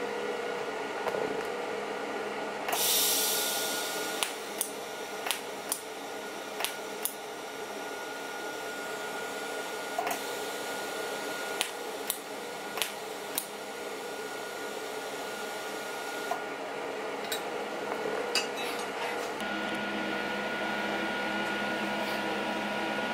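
TIG welding arc on the end of a 3 mm stainless steel wire rope. A loud hiss comes as the arc starts about three seconds in, then a steady hiss with a thin whine and scattered sharp ticks, and the arc stops at about sixteen seconds. Near the end a low steady workshop hum takes over.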